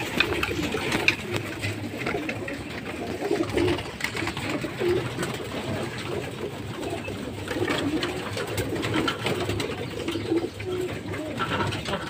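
A loft full of domestic pigeons cooing together in a steady overlapping murmur, with scattered wing flaps and sharp clicks among them.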